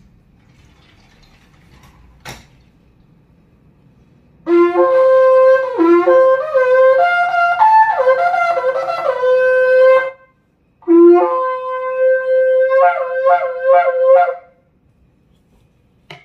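A long twisted shofar blown by a child, starting about four seconds in: two blasts, the first about six seconds long, jumping from a low starting note up to a higher held note that wavers and breaks. The second blast is shorter and ends in a run of quick broken notes.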